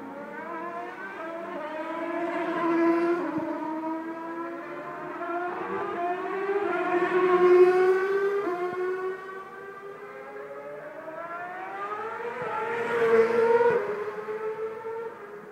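2.4-litre V8 engines of Formula One cars screaming at high revs, the pitch climbing as they accelerate and dropping sharply at each upshift. The sound swells three times, loudest about a third of the way in, near the middle and near the end.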